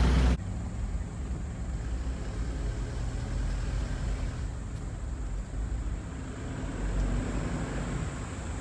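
Car running slowly, heard from inside the cabin: a steady low engine and road rumble, with a faint steady high whine. A louder noise cuts off abruptly just after the start.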